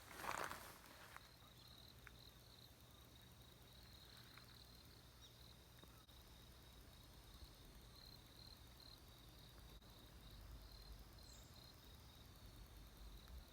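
Near silence, with a faint, steady high insect-like chirring that pulses on and off in places. There is a brief rustle at the very start.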